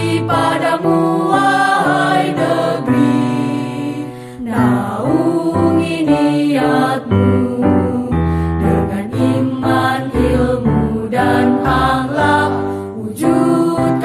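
Music: a school march song sung in Indonesian by a choir.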